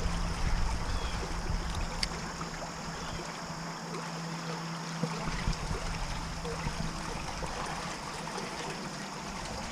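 Small creek running steadily, a continuous even rush of flowing water.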